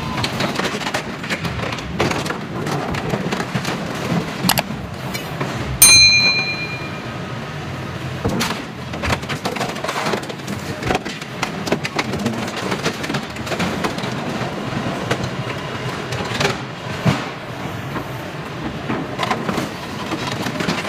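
Excavator-mounted hydraulic metal shear crushing and tearing apart a truck cab: steady crunching, creaking and knocking of sheet metal, with one loud ringing clang about six seconds in.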